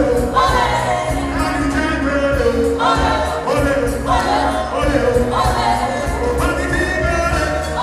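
Live band music with group singing over a steady bass line.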